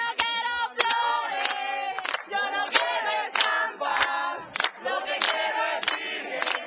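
A crowd of young people singing a hymn together, mostly high voices, with steady hand-clapping on the beat, about one clap every two-thirds of a second.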